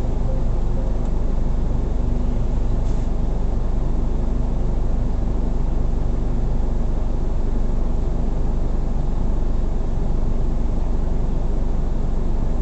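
Steady low hum of a car being driven, with engine and road noise.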